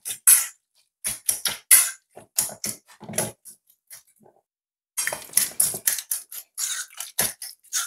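Metal fork mashing avocado in a stainless steel bowl: quick, irregular clicks and scrapes of the tines against the bowl, with a short pause about halfway through.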